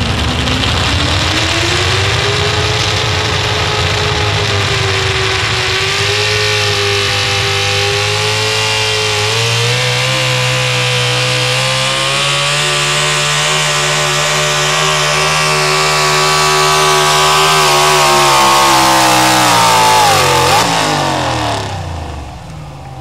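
Engine of a Ford pro stock four-wheel-drive pulling truck running at high revs under full load as it drags the pulling sled. The pitch climbs over the first few seconds and holds high, then falls steeply about twenty seconds in as the throttle is let off.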